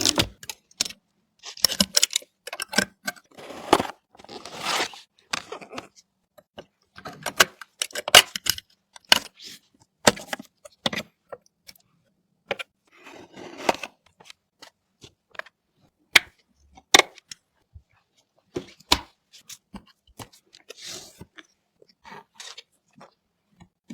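Sharp clicks and snaps with short bursts of rustling and tearing as computer parts and their packaging are handled and unpacked.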